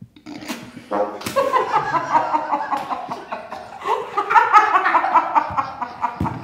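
A group of people laughing together, breaking out about a second in, with a woman's laughter among the voices.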